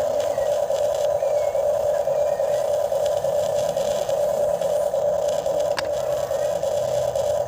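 Motor of an RC excavator running steadily at one pitch, with a single sharp click near the end.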